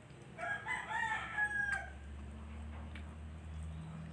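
A rooster crowing once, a single call about one and a half seconds long.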